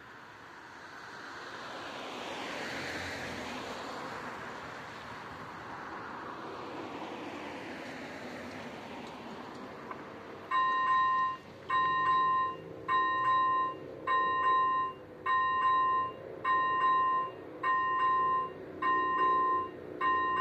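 Road traffic passes the level crossing for the first ten seconds. About ten and a half seconds in, the crossing's electronic warning bell starts, a loud clear ringing tone repeated about once a second, as the crossing activates for an approaching train.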